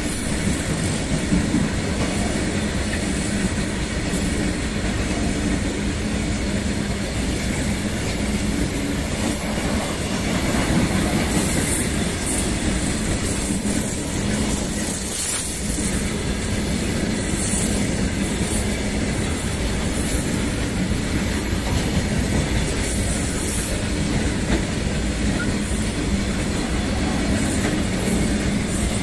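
Long Indian Railways freight train of covered goods wagons rolling past close by: a steady rumble of wagon wheels on the rails with a clatter over the rail joints. A thin high wheel squeal runs through most of the passage and dies away about three-quarters of the way through.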